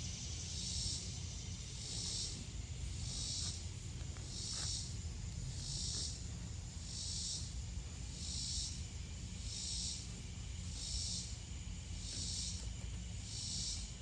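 A rhythmic pulsing hiss, each pulse about half a second long and repeating roughly every 1.2 seconds, over a steady low rumble.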